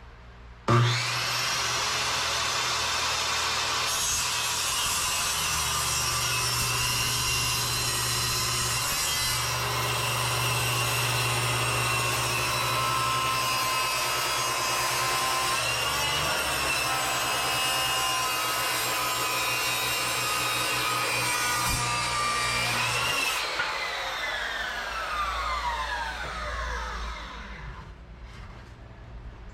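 An electric power tool's motor starts abruptly, runs steadily for about twenty seconds, then is switched off and winds down with a falling whine over several seconds.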